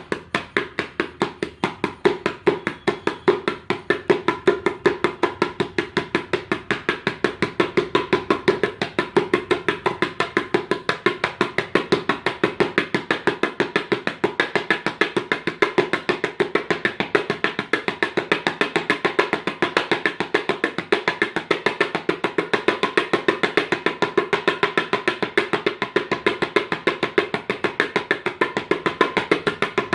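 Tabla played in fast, evenly spaced strokes, imitating the thumping run of a Royal Enfield Bullet motorcycle's engine.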